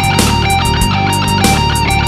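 Electric guitar, an Ibanez Jem7VWH played through a Custom Audio Amplifiers 3+ SE preamp with Lexicon reverb, playing a rhythmic riff of quickly picked notes over a sustained low note with held higher notes on top.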